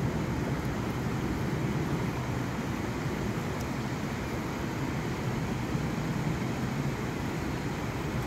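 Steady rush of river water running over rocky shoals.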